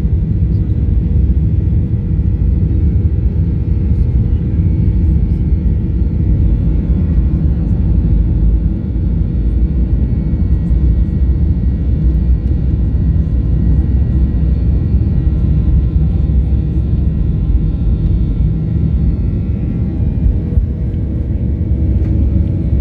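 Jet airliner's engines at takeoff thrust, heard from inside the cabin as a loud, steady rumble with a faint engine whine above it, through the takeoff roll and initial climb.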